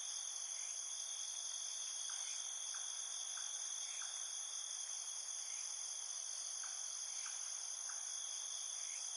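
Insects trilling steadily at a high pitch, with faint short chirps scattered through.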